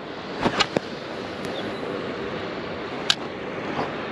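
Steady wash of sea water and wind around an inflatable float tube, with a few light clicks from handling fishing tackle: a short cluster about half a second in and one sharp click about three seconds in.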